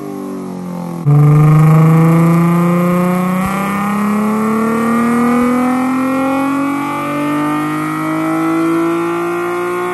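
Infiniti G37's 3.7-litre V6 making a wide-open-throttle pull on a chassis dyno while being tuned on E85. About a second in the engine comes on hard, and its note then climbs smoothly and steadily through the rev range.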